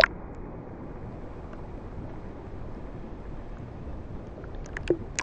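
Steady, muffled rush of water around a camera held at the sea's surface while swimming. There is a sharp knock at the very start and a quick run of clicks near the end.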